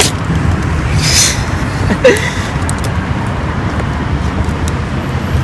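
Cardboard and clear plastic packaging of a GoPro camera box being handled and pulled apart: a crinkle about a second in, a sharp knock about two seconds in, then a few light clicks. A steady low rumble runs underneath.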